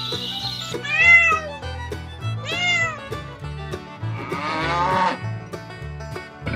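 A domestic cat meowing three times, each call rising and falling in pitch, over background music with a steady repeating bass line.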